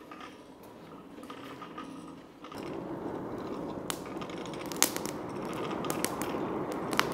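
Hand-cranked forge blower: about two and a half seconds in its gears start turning and air begins rushing into a freshly lit kindling fire. Sharp pops and crackles come from the burning wood.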